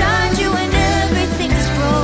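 Background pop song: a sung melody with bass and accompaniment.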